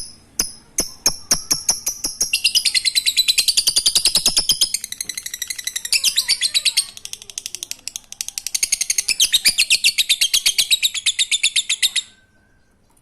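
Lovebird (Agapornis) 'ngekek' song: sharp high chirps that quicken into a long, fast, unbroken chattering trill. It stops suddenly about a second before the end.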